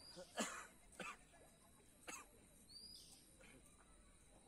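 A few short, sharp animal calls, three in the first two seconds, the first the loudest, with a faint high chirp heard twice, over quiet outdoor background.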